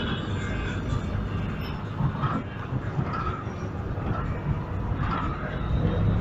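Steady engine and road noise inside a moving Volvo city bus with a Neobus Mega BRT body.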